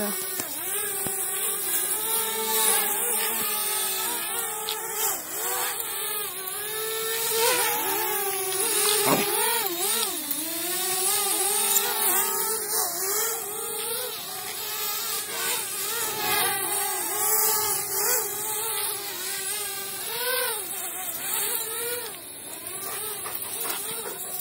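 DJI Spark quadcopter drone's propellers buzzing as it flies low, the whine wavering up and down in pitch as it speeds up, slows and turns.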